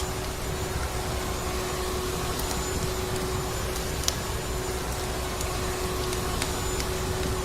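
Vacuum cleaner running steadily, a constant hum over a rushing hiss, with a few sharp, isolated crackles from a wood fire.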